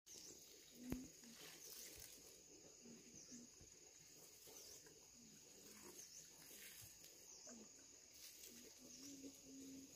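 Faint animal calls: short low notes repeating irregularly, with faint high chirps, and a single click about a second in.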